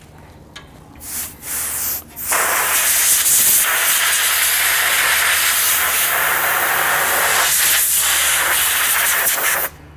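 Compressed-air blow gun blasting air through a freshly washed, wet foam air filter to blow it out. A couple of short bursts, then a steady hiss lasting about seven seconds that cuts off sharply near the end.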